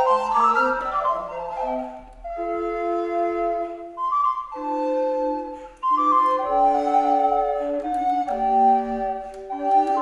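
A consort of wooden recorders playing Baroque music in several parts at once, sustained notes moving step by step, with short breaks between phrases about two and six seconds in.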